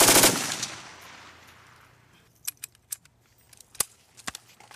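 A short, loud burst from a belt-fed machine gun at the very start, its echo dying away over about two seconds. After that come several single gunshots spaced irregularly through the rest.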